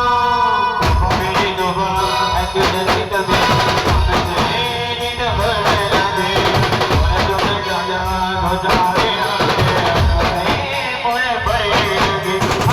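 Band music: a held chord, then about a second in the drums come in with a steady driving beat under the melody instruments.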